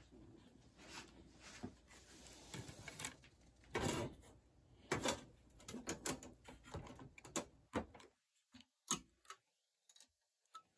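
Faint scattered clicks, taps and rustling of small objects being handled, with a few louder knocks about four and five seconds in, then near silence for the last couple of seconds.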